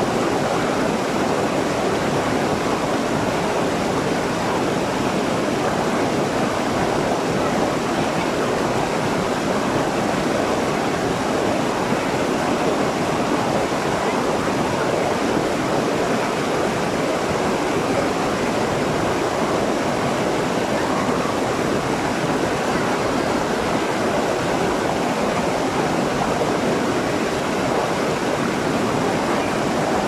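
Water of a small rocky waterfall cascading over stones and around a person sitting in it, a steady, even rushing that never lets up.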